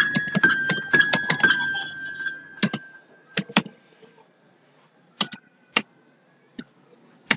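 Computer keyboard typing: a quick run of keystrokes for the first two seconds or so, then a few separate pairs of key presses spaced a second or more apart. A faint ringing tone sits under the opening keystrokes and fades out.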